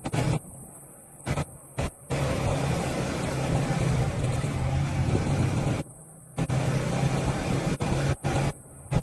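Motorcycle engine running steadily while riding, with road and wind noise over it. The sound cuts off and comes back suddenly several times.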